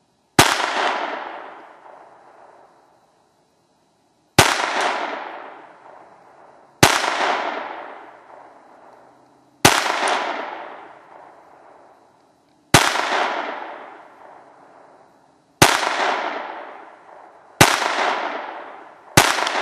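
Ruger 22/45 Mark III .22 LR semi-automatic pistol firing eight slow, aimed shots two to three seconds apart, each sharp crack trailing off in a long echo.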